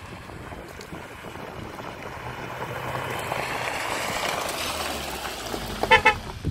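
Hyundai Tucson SUV driving up a gravel track, its engine and tyres on the loose stones growing louder as it comes near. About six seconds in come two short, loud horn toots in quick succession.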